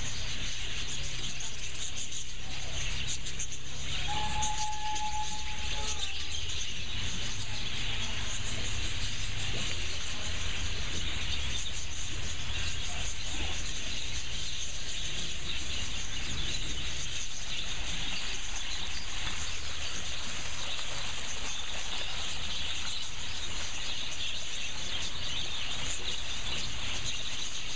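A large flock of budgerigars chattering and twittering continuously, a dense steady din of many birds at once over a low rumble. A brief steady whistle-like tone sounds about four seconds in.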